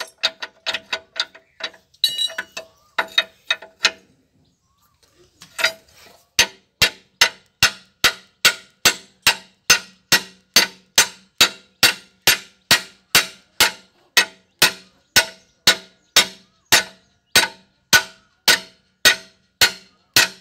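Sharp, ringing metal clicks in an even rhythm, about two a second, from hand work on a Massey Ferguson DI 5245 tractor's crown wheel and pinion. They stop for about two seconds near the start, then carry on evenly.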